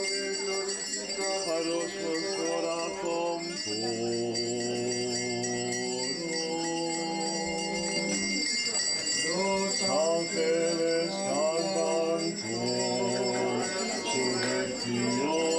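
Orthodox liturgical chant sung by several voices in long held notes that slide from one pitch to the next, with small bells jingling steadily behind it.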